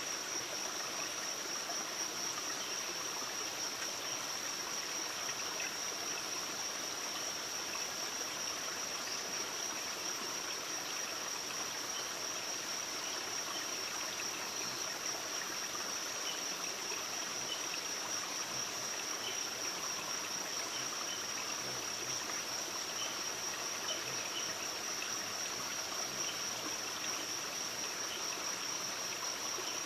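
Steady insect chorus: an unbroken high, even trill from crickets or similar insects, over a constant rushing hiss like running water.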